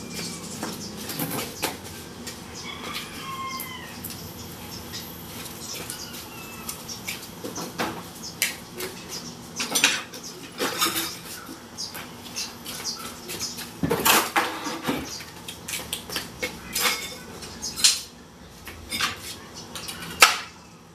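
Wooden boards and scrap wood pieces knocking and clattering against each other as they are moved and stacked by hand: a long run of sharp, uneven knocks, with a louder clatter about 14 seconds in and another near the end.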